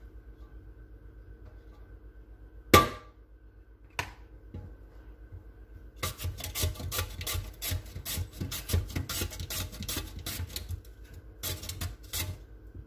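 A potato scraped back and forth over the slicing blade of a metal box grater, cutting thin slices in a quick run of rasping strokes, about three to four a second. The strokes start about six seconds in and stop shortly before the end. Earlier come one loud sharp knock and, a moment later, a lighter one.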